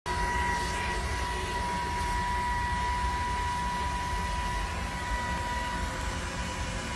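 Steady hiss of a hose-fed plumber's torch flame heating a copper pipe fitting before solder is fed into the joint. A steady high-pitched whistle runs along with it.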